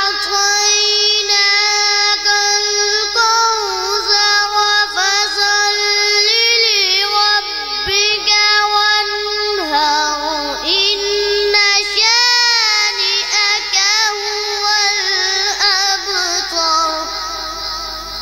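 A boy singing long, held notes with ornamented pitch bends into a microphone, trailing off near the end.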